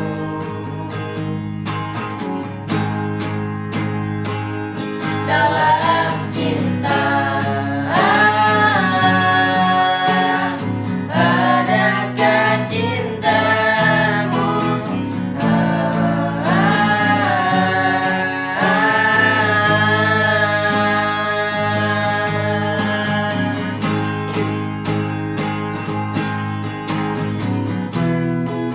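Guitar strummed, with a voice beginning to sing over it about five seconds in and singing through to near the end.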